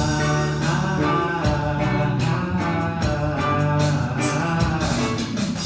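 A Christian song with guitar accompaniment and singing, playing steadily between sung lines.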